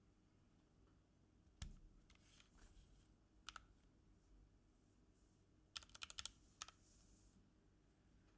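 Clicky Kailh Blue key switches on a Logitech G Pro X mechanical keyboard, pressed sparsely: a single keystroke, a couple more, then a quick run of about six clicks and one last press.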